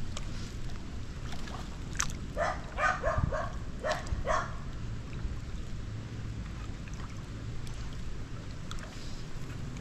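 A dog barking in a quick run of about six short, rising yips over about two seconds, starting just after a sharp click about two seconds in, over a steady low wind rumble on the microphone.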